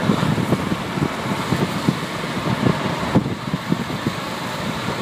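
Road and wind noise of a moving car, heard from inside as it drives along, with irregular low thumps and knocks several times a second.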